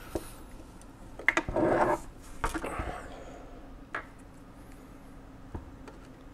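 Metal parts of a 1917 Monroe mechanical calculator clinking, scraping and rattling as its loosened side plate and frame are shifted by hand. There is a cluster of clicks and a rattle about a second and a half in, then a few single clicks.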